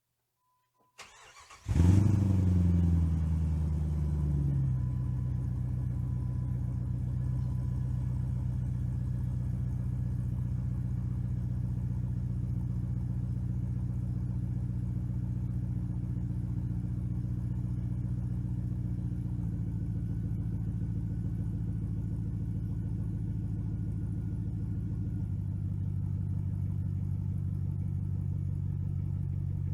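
Cold start of a 2004 Jeep Grand Cherokee's 4.7 HO V8 through a Magnaflow muffler that dumps under the body: a brief crank, then it catches with a loud flare of revs. It settles over a few seconds into a steady fast cold idle, which drops slightly in two steps later on.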